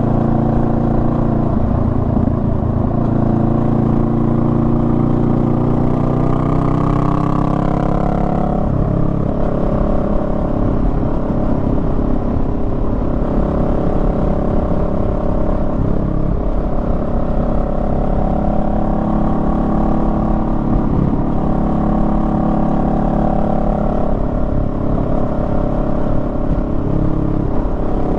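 Honda Rebel 500's parallel-twin engine running on the move: the revs climb for several seconds, drop about a third of the way in, then hold fairly steady with small rises and dips.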